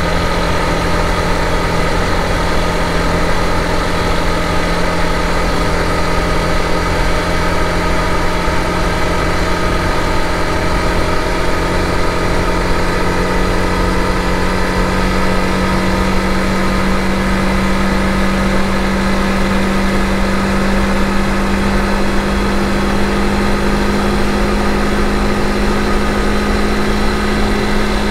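Honda CRF250 Rally's 250 cc single-cylinder engine running steadily at cruising speed, with wind rush. The engine note creeps up a little partway through.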